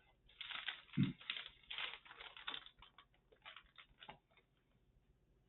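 Handling noise: a run of quick clicks and rustles with a dull thump about a second in, dying away after about four seconds.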